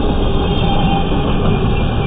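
Double-stack intermodal well cars of a freight train rolling past, a steady rumble of steel wheels on the rails.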